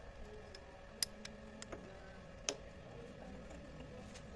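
Sharp metallic clicks and ticks of a steel hand tap and T-handle tap wrench being handled and set into a drilled hole in a steel block, two louder clicks about a second and a half apart, over a faint steady hum.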